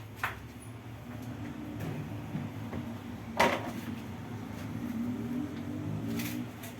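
Household knocks while cupboards and drawers are searched. There is a sharp click about a quarter of a second in, and one loud knock, like a cupboard door shutting, about three and a half seconds in.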